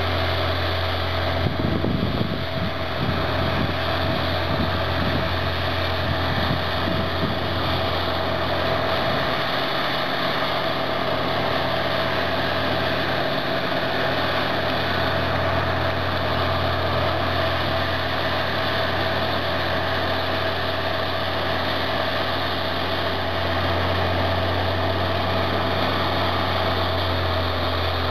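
Caterpillar D11N bulldozer with a Cat C27 ACERT V12 diesel running steadily under load as it pushes a large load of dirt downhill, with a run of irregular clatter in the first several seconds.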